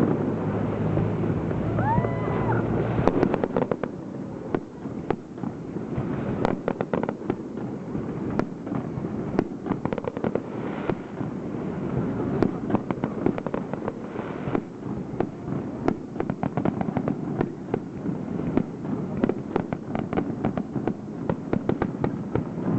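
Aerial firework display: shells bursting with many sharp cracks in quick succession and dense crackling. A brief whistle sounds about two seconds in.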